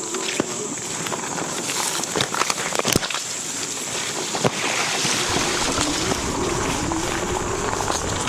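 Wind rush and tyre rumble from an Aniioke A8 Pro Max dual-motor e-bike ridden over rough, bumpy pavement, with frequent knocks and rattles from the bumps. In the second half a low motor whine rises steadily in pitch as the bike speeds up.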